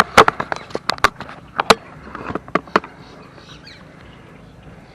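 Cooking gear being handled and set down: a run of sharp clicks and knocks over the first three seconds or so, then only a low, even background.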